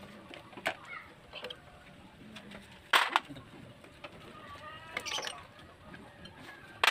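Metal clicks and knocks from parts and tools being handled while the camshaft holder is unbolted and lifted off the opened DOHC cylinder head of a Suzuki Raider 150. A few sharp clicks spaced a second or so apart; the loudest come about three seconds in and at the very end.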